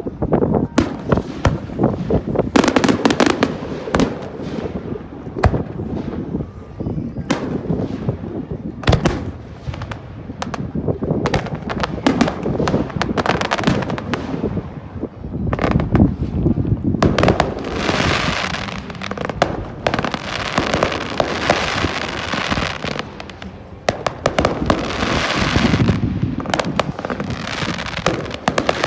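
Fireworks display: many sharp bangs and booms in quick succession, and in the second half long stretches of dense crackling between the booms.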